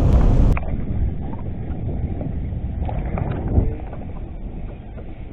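Wind buffeting an action-camera microphone out on open water: a steady low rumble, with a single dull knock about three and a half seconds in.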